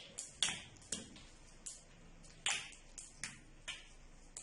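About ten sharp, irregular clicks of hard, dried soap nuts knocking against each other and the surface as they are handled.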